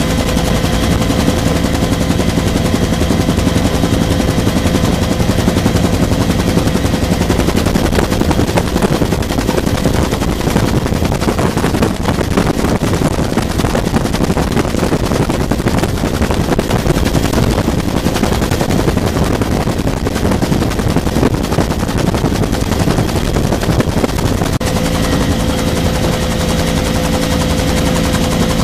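Bell UH-1 Huey helicopter heard from inside the cabin in flight: the two-bladed main rotor's rapid, steady beating under a steady turbine and gearbox whine. The whine is weaker through the middle and stronger again near the end.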